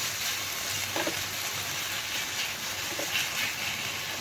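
Thick sauce sizzling steadily in a pan as it cooks down until dry.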